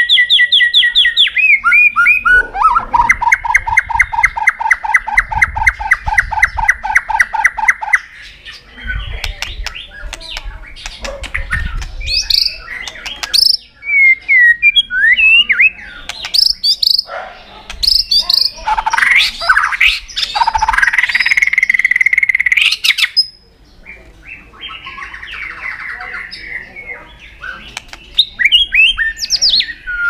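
White-rumped shama singing a varied song: a long, rapid trill of repeated notes for about six seconds, then a string of changing whistled phrases, with one held note just past the middle.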